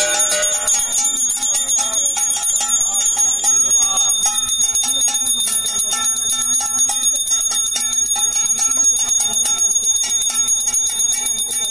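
A puja hand bell (ghanta) rung continuously in rapid, even strokes, with a steady high ring.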